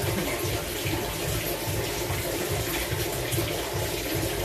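Steady rushing of running water, with an irregular low throbbing underneath.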